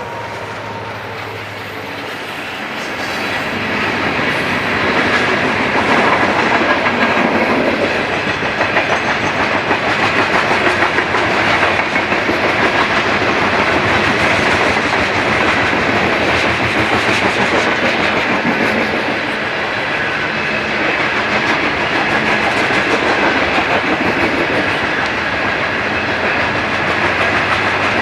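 Freight train rolling past, its steel wheels clattering over the rail joints in a steady rumble that grows louder over the first few seconds.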